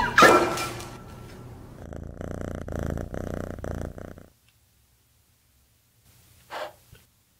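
The last of a cat commotion (yowling and knocking about) dies away in the first second, then a domestic cat purrs in a soft pulsing rhythm for about two seconds, stopping suddenly. A brief faint sound follows near the end.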